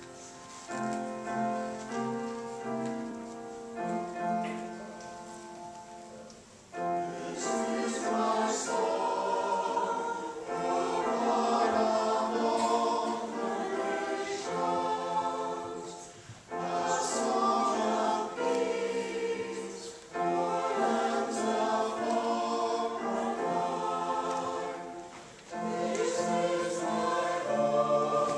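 Small mixed choir of men's and women's voices singing in phrases that pause every few seconds; it starts softly and grows fuller about a quarter of the way in.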